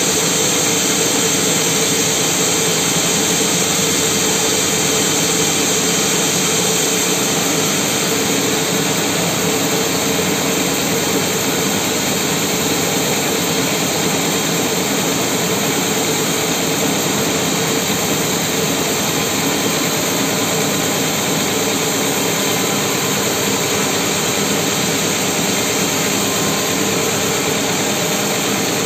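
Band sawmill running steadily at full power, its blade sawing lengthwise through a mahogany log.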